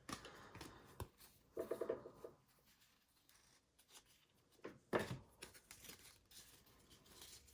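Trading cards being handled and flipped through one by one: faint paper-on-paper sliding and scraping, with a sharp click about a second in and a brief swish about five seconds in.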